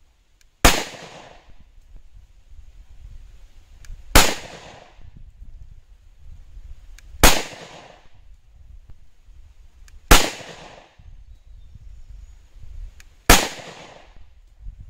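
Five shots from a 5.7x28mm pistol, fired slowly, about three seconds apart. Each sharp crack trails off in a short echo.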